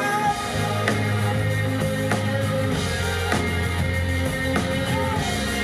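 Alt-pop rock band music: electric guitar over drum kit and a steady bass line.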